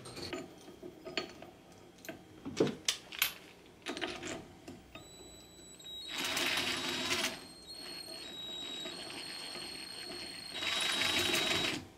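Cordless drill turning the forcing screw of a pulley puller clamped on a swamp cooler motor's pulley, running in spurts: a loud burst about six seconds in, a quieter steady whine for a few seconds, then another loud burst near the end. Clicks and knocks of the puller being fitted on the pulley come first.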